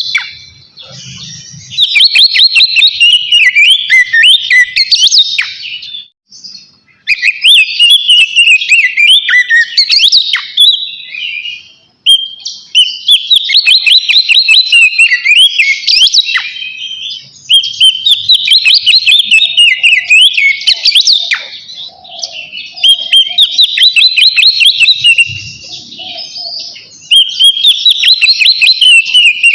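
Oriental magpie-robin (kacer) singing loudly in full, open song (ngeplong), the territorial song that calls out a rival male. It comes in phrases of a few seconds of rapid, varied whistled notes, with short pauses between them.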